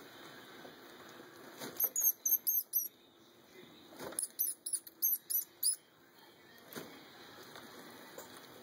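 Mouse squeaking as a tegu lizard goes after it: two quick runs of six or seven short, high chirping squeaks, about two seconds in and again about four seconds in, with brief scuffles in the bark-chip bedding.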